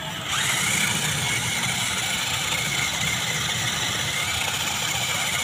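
Two 1/16 toy RC rock crawlers' small electric motors and gearboxes whining steadily at full throttle, straining against each other on a tow rope in a tug-of-war; the whine jumps up about a third of a second in.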